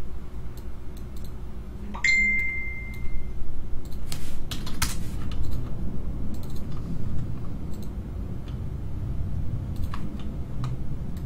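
A small hard object clinks once and rings on as a clear high note for about a second, then a few sharper clinks and scattered faint clicks follow over a low steady hum.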